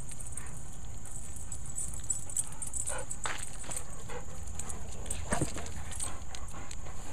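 Bluetick Coonhound close to the microphone, making a few short sniffing or snuffling noises about three seconds in and again, louder, about five seconds in, over a steady low rumble.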